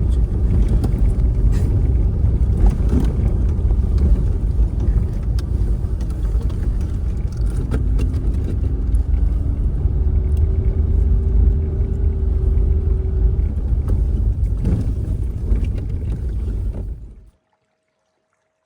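Steady low rumble of a car being driven, road and engine noise, which cuts off suddenly near the end.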